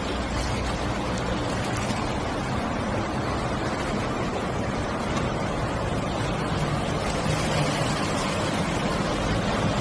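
Steady rush of water with a low engine hum under it, as of a vehicle moving through a flooded road.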